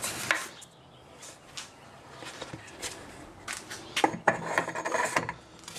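Wood being handled: a sharp knock just after the start, a few light taps, then a busy stretch of rubbing and scraping from about four seconds in.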